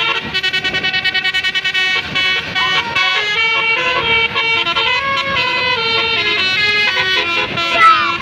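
Bus-mounted Basuri telolet multi-tone horn playing a tune of stepped horn notes, with a fast stuttering trill over the first two seconds. Near the end a falling tone sweeps down.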